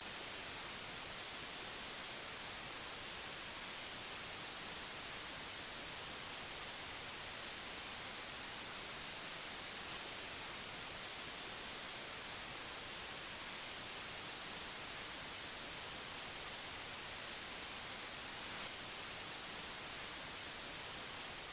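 Steady hiss of static, like white noise, even and unchanging, with most of its energy in the high frequencies.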